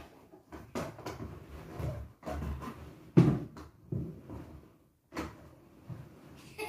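Irregular thumps and knocks of a large plastic bucket bumping on a wooden floor as a child pushes and rocks it with another child sitting inside. The loudest thump comes about three seconds in.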